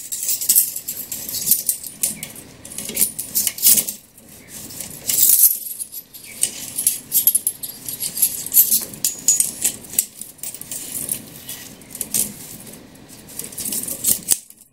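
A steel clock mainspring being wiped down with a cloth to clear off kerosene, jingling and clicking metallically in irregular spells as it is rubbed and shifted.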